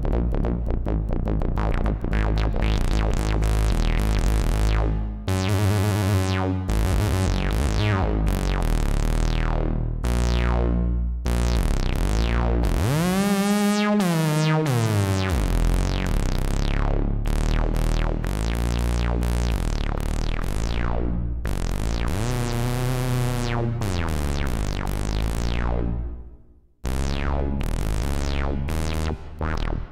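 Homemade analog synthesizer prototype played from a keyboard, run through a Lexicon MPX550 reverb: sustained synth notes and chords, with filter sweeps that rise and fall about halfway through and again later. The sound briefly cuts out near the end.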